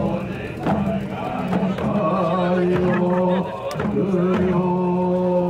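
Male voices chanting a Buddhist sutra in long, held low notes, each lasting a second or more, with short breaks between phrases and a few sharp knocks.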